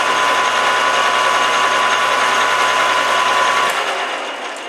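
Metal lathe running with a steady whine, the drill already withdrawn from the steel shaft so no cut is being taken. About three and a half seconds in the motor is switched off and the machine winds down.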